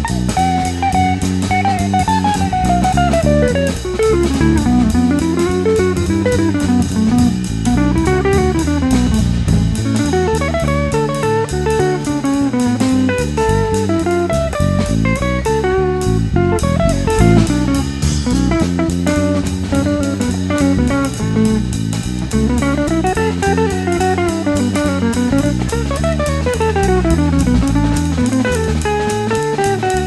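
Instrumental background music: a guitar melody over a drum kit with a steady beat.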